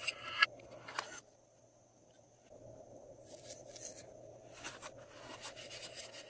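Glossy slime being squished and pulled by hand, making sticky crackling and clicking in short bursts, with two longer stretches in the second half.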